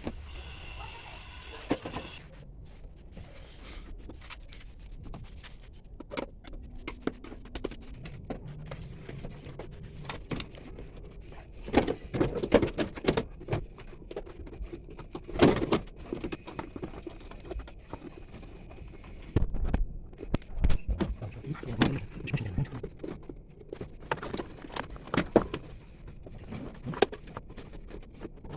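Irregular knocks, clicks and clatter of parts and tools being handled, with louder clusters of knocks partway through.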